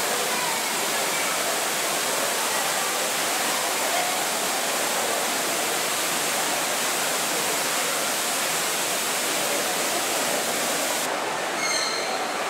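Steady rushing of a waterfall, with a few brief high chirps near the end.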